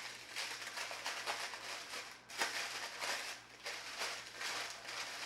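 Tissue paper rustling and crinkling in irregular surges as it is handled and unwrapped from a box.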